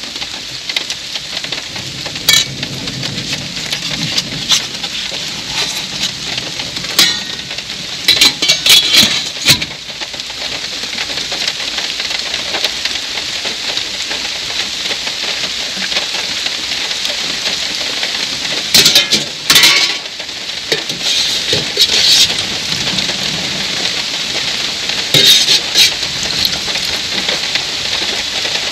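Steady hiss of rain falling, with a metal serving spoon clinking and scraping in steam-table pans and foam takeout containers in several short bursts of clatter.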